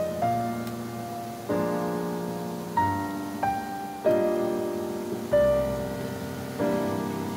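Background music: a gentle piano piece, with a new note or chord struck every second or so and each one fading away.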